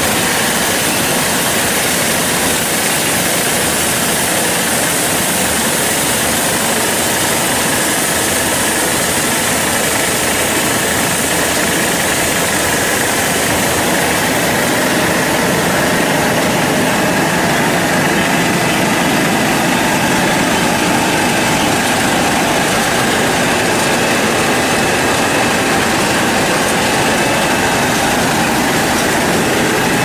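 Air bubble vegetable washing machine running, a loud, steady, even machine noise that does not change.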